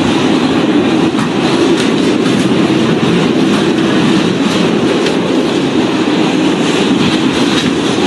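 Subway car running through a tunnel, heard from inside the car: a loud, steady rumble of wheels and motors with a few scattered clicks.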